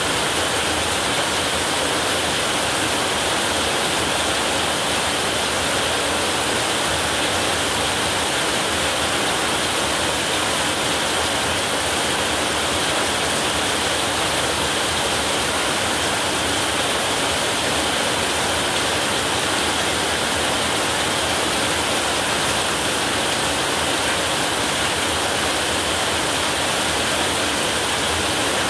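Heavy rain falling steadily on a roof, an even, unbroken hiss with no thunder.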